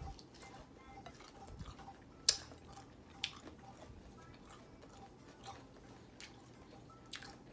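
A person eating fried chicken close to the microphone: quiet chewing with scattered small clicks, a sharp one about two seconds in and another about three seconds in.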